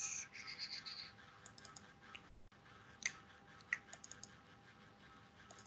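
Faint, scattered clicking of a computer mouse and keyboard, with two sharper clicks around the middle.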